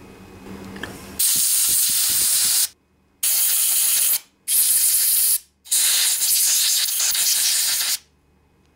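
Four hissing bursts of pressurized spray, each starting and stopping sharply, the last one the longest, blowing out the passages and jets of a small-engine carburetor that had been plugged.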